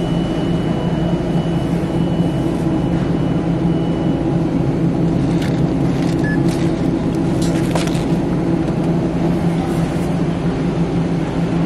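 Steady low droning hum of supermarket refrigerated produce cases and ventilation. A faint high whine stops about four seconds in, and a few light clicks come between about five and eight seconds in.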